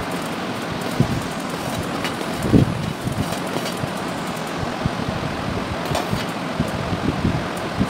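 Pen scratching on paper as a drawing is inked, with a couple of soft knocks from the hand against the drawing surface, over a steady background noise.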